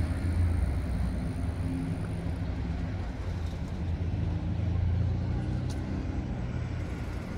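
Street traffic: the low, steady rumble of a motor vehicle engine, swelling slightly about five seconds in.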